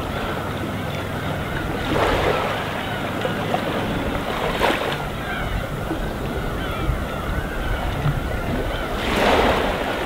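Gentle sea waves washing in, a steady rush with two louder surges, about two seconds in and near the end.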